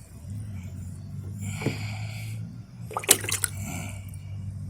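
Water splashing and dripping in short bursts, with a couple of sharp clicks about three seconds in, over a steady low hum.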